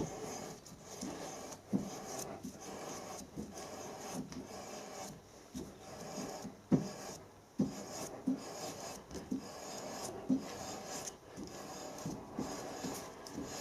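Threading die cutting a thread on a metal bolt blank: a rough, scraping sound broken by irregular sharp clicks and knocks, roughly one a second.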